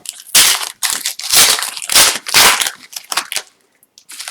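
Crinkling and tearing of a trading card pack's foil wrapper, in several loud crackling bursts over about three seconds as the pack is ripped open.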